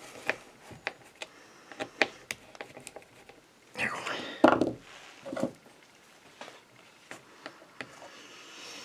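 Light clicks and taps of a screwdriver working the terminal screws on an electric drill's switch, with louder handling noise against the drill's plastic housing about four seconds in.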